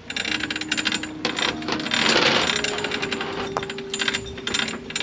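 Galvanised anchor chain rattling and clinking, link on link, as it runs over the bow roller and is pulled out onto the pontoon, loudest about two seconds in.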